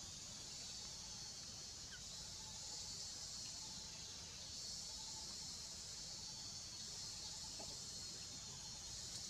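Steady, even high-pitched drone of a forest insect chorus. A faint low rumble sits under it.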